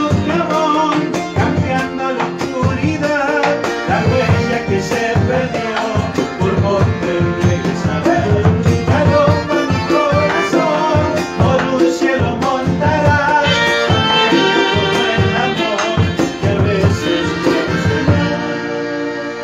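A small folk ensemble playing live: violin and accordion melody with guitar over a quick run of drum strokes. About eighteen seconds in, the drum stops and the band holds its final chord as the music dies away.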